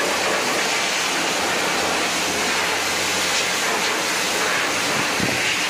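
Tap water running steadily into a stainless steel wash tub: an even, unbroken rush.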